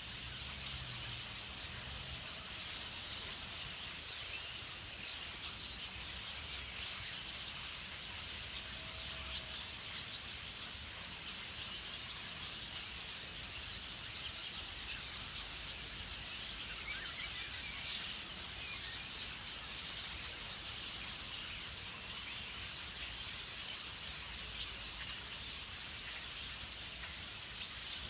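Many small birds chirping together, a dense unbroken chatter of short high-pitched calls.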